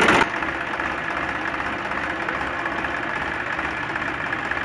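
Massey Ferguson 5245 DI tractor's three-cylinder diesel engine just after starting: a loud start-up rev that drops within the first moment to a steady idle.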